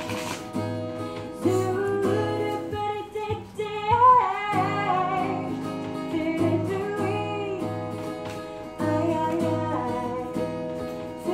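A woman singing to her own strummed acoustic guitar. The guitar strums alone at first, and the voice comes in about a second and a half in.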